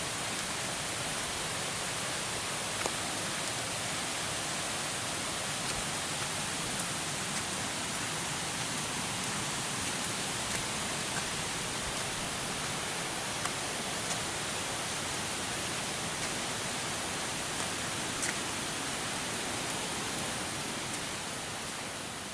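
Waterfall rushing: a steady, even hiss of falling water, with a few faint ticks over it, easing off at the very end.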